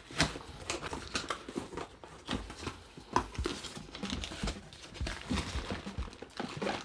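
Handling noises of an opened cardboard box: irregular light knocks, scrapes and rustles as its contents are moved about.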